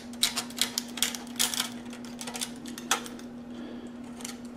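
Utility knife blade scraping paint coating off a steel whirligig blade in quick, irregular scratches, which come more sparsely after about two seconds. A steady low hum lies underneath.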